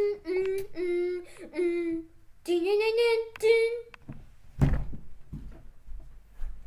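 A child's high-pitched voice in drawn-out, sing-song notes for about four seconds. It stops, and soon after comes a single thump followed by a few low knocks and rumbles.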